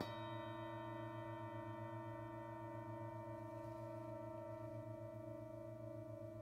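Two bronze singing bowls, the Acama bowl with its central handle amplifier and a plain universal bowl, ringing on after being struck together with a hard mallet, the second strike at the very start. A deep hum with many steady overtones above it, wavering in a fast regular beat and fading only slowly.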